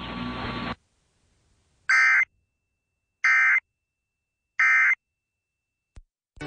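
Receiver hiss cutting off, then three short, identical bursts of buzzy Emergency Alert System digital data tones, evenly spaced about a second and a third apart: the end-of-message signal that closes an EAS alert. A faint click near the end.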